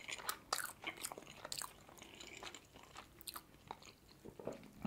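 A mouthful of manti, a steamed meat dumpling, chewed close to the microphone: many short, soft mouth clicks and smacks in quick, irregular succession.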